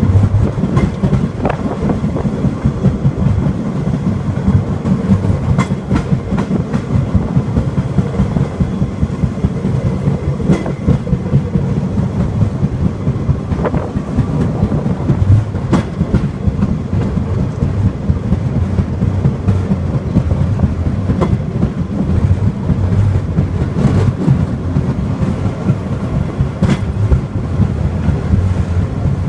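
Rail cart of the Takachiho Amaterasu Railway running along the track, heard on board: a steady low rumble with scattered sharp clacks of the wheels over rail joints.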